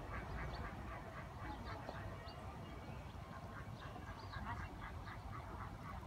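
Ducks quacking repeatedly on a pond, many short calls one after another, over a steady low rumble.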